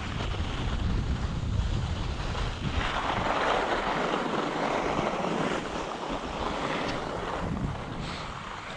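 Skis sliding over snow, with wind rushing on the microphone. A low buffeting rumble at first gives way, about three seconds in, to a louder hiss of the skis on the snow, which eases off near the end.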